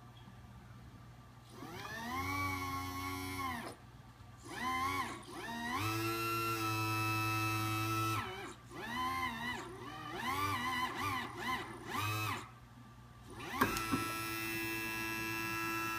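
Liebherr 922 excavator's hydraulics whining in a string of separate bursts as the controls are worked. Each burst rises in pitch, holds steady for a second or two, then falls away, over a steady low hum.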